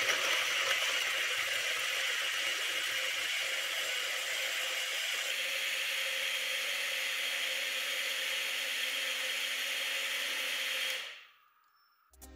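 Homemade cordless mixer grinder, its 24 V DC motor spinning the blades in a small steel jar of wet red mix, running with a steady whirr. The sound settles to a steadier hum about five seconds in, and the grinder is switched off and stops quickly near the end.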